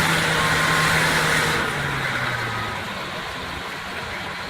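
Diesel engine of heavy earthmoving machinery running high, then dropping in pitch and getting quieter about a second and a half in as it eases back to a lower, steadier run.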